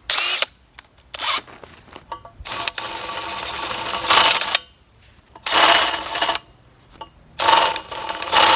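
Cordless drill running in five short bursts as a larger bit chamfers the drilled holes in a galvanized steel pipe. The middle burst is the longest, about two seconds.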